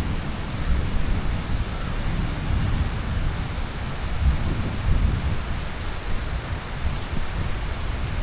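Heavy tropical monsoon rain falling steadily, a dense even hiss, with a low rumble underneath that swells and fades.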